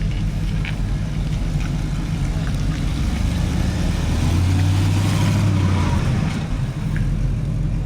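Car engine running steadily with a low rumble that swells louder for about two seconds midway, as if it is given a little throttle or drives close by.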